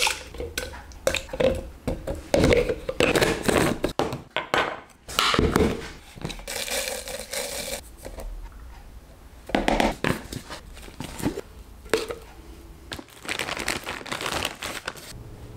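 Crinkling and rustling of packaging being handled, in irregular bursts.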